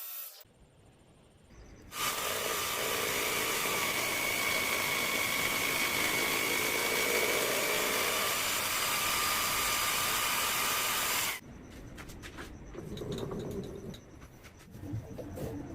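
Steady hissing machine noise with faint high whining tones, starting about two seconds in and cutting off suddenly about nine seconds later, followed by light clicks and knocks.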